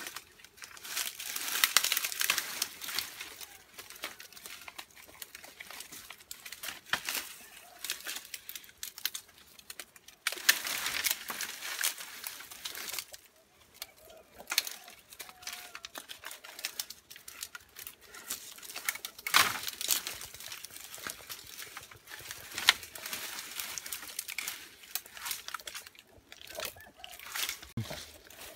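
Dry bamboo leaves and twigs rustling and crackling in irregular bursts as a person climbs and pushes through a bamboo thicket.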